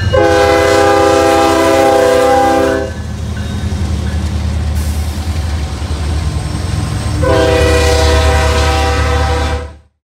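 A diesel freight locomotive's air horn blows two long blasts, each a steady multi-note chord: one at the start lasting nearly three seconds, and another about seven seconds in. A continuous low rumble from the locomotive and train runs underneath and stops abruptly just before the end.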